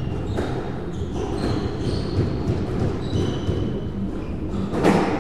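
Squash rally: sharp racket strikes and the ball smacking the walls about once a second, with short shoe squeaks on the wooden court floor between shots; the loudest hit comes near the end.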